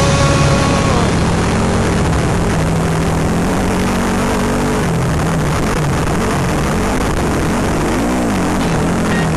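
Yamaha Rhino side-by-side's engine running hard on a dirt track, its pitch rising and falling as the throttle and terrain change, over a steady rushing noise.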